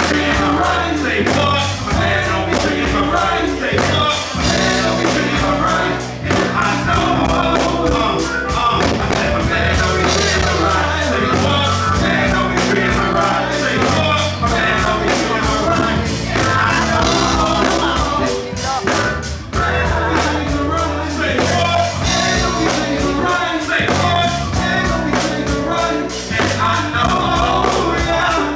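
A live band plays a hip-hop/R&B song, with drums, bass and keyboard under male vocals on a microphone. It is heard loud from the audience in the hall, with a steady beat and sustained bass notes.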